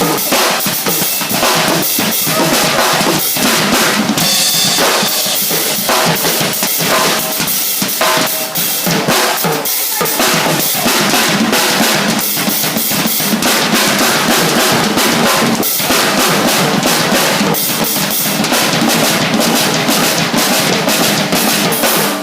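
Drumming: a fast, continuous percussion beat with bass-drum and snare-like hits, steady throughout.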